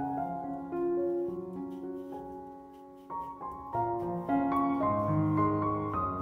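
Background piano music: a slow, gentle melody of single notes that ring on and overlap.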